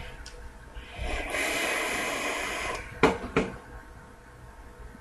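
Sub-ohm vape hit on a dripping atomizer with a 0.2-ohm coil: a steady hiss lasting about two seconds as the coil fires and air is drawn through it, then two short sharp sounds just after.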